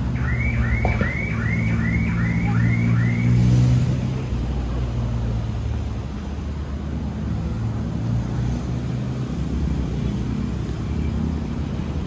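Steady hum of a motor vehicle engine running nearby. During the first three seconds a string of eight quick high chirping notes repeats evenly over it, about two and a half a second.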